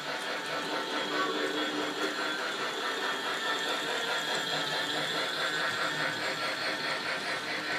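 Battery-powered toy train running along its track: a steady small-motor whir with a fast, even clicking.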